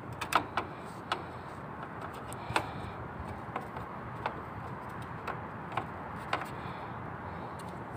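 Light clicks and taps, about a dozen at irregular intervals, from hands and tools at the sheet-metal electrical panel of an air conditioner's outdoor unit as a capacitor is fitted, over a steady background noise.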